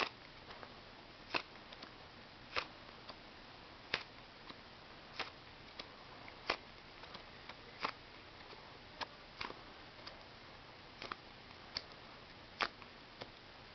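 Playing cards handled one at a time, making faint sharp clicks and snaps about once a second.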